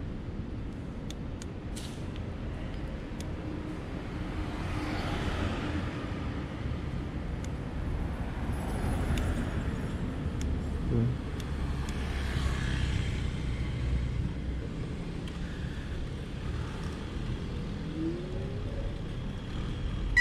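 Wind rumble and tyre noise from a Tazer Mini electric scooter being ridden, with passing car traffic; the noise swells twice, around five and twelve seconds in.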